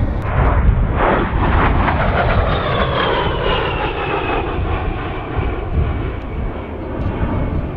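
A-10 Thunderbolt II jet flying past: the steady rush of its twin turbofans, with a high whine that falls in pitch as it goes by. The sound slowly fades.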